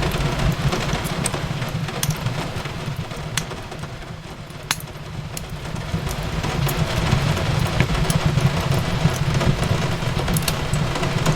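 Fireplace crackling, with scattered sharp pops over a steady hiss of rain and a low rumble. The bed dips quieter for a couple of seconds around the middle, then swells back.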